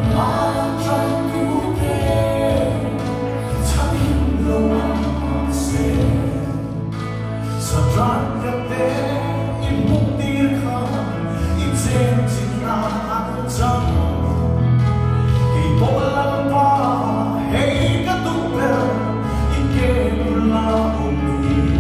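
Man singing a Mizo gospel song into a handheld microphone, amplified through the hall's sound system over instrumental accompaniment with a steady bass line.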